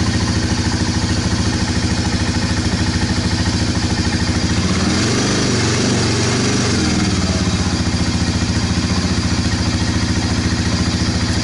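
1998 Honda FourTrax 300 ATV's air-cooled single-cylinder four-stroke engine idling steadily, briefly revving up about five seconds in and settling back to idle.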